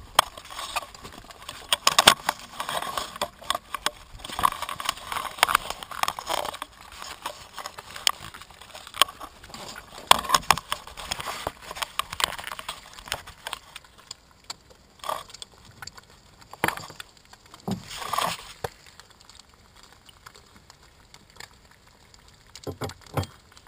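Eggs frying in a pan on a small camping stove, crackling, mixed with irregular knocks and clatter of handling on the wooden boat. Busy for the first half, then quieter, with a few sharp knocks.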